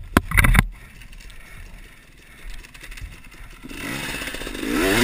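Sharp clattering knocks at the start, then a quieter stretch, then an enduro dirt bike's engine rising in revs near the end, its pitch wavering.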